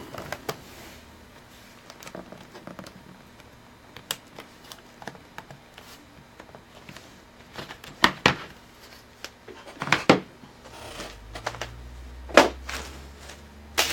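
Scattered plastic clicks and knocks from a Gateway laptop being handled as its battery is taken out, with a low hum coming in near the end.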